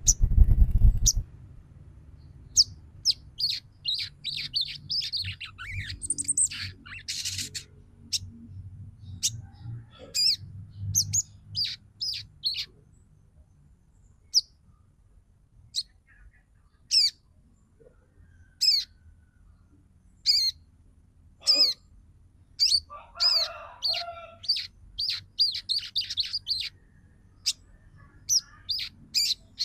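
Female sogon bird calling: short, high chirps that sweep sharply downward, given in quick chattering clusters with pauses between. A loud low thump fills the first second.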